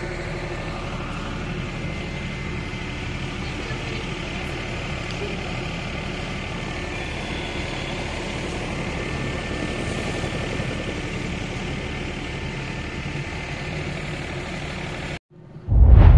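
A steady low mechanical rumble, like an engine running, with faint background noise. It cuts off abruptly about fifteen seconds in, and a loud deep boom follows.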